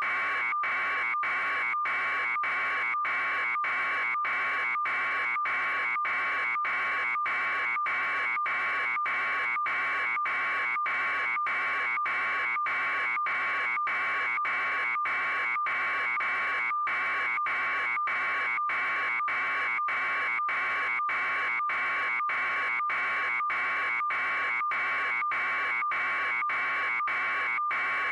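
A steady electronic buzz with a constant tone, broken by short even dropouts about one and a half times a second.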